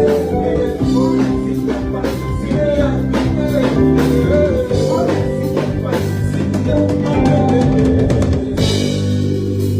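Live band playing a groove: drum kit with a steady beat, guitar and bass, with some singing. Near the end the drums stop and the band holds a sustained chord.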